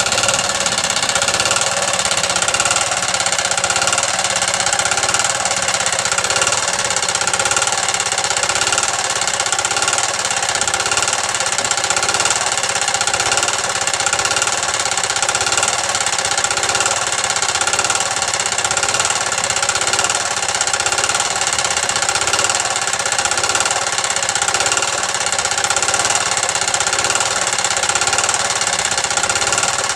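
Gasoline-powered air compressor's 3 HP Briggs & Stratton single-cylinder engine running steadily, with a rapid, even chugging as it drives the pump.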